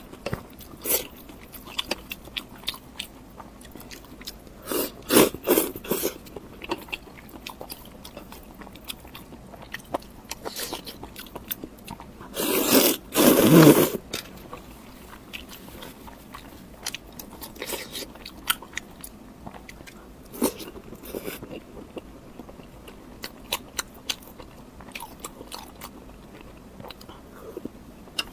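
Close-miked eating sounds: irregular bites, crunches and chewing, with a louder crunching burst about halfway through.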